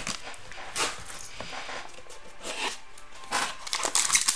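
Rustling and scraping of hands opening a small black trading-card box and handling the plastic-wrapped pack inside, with a run of short crinkly rustles near the end.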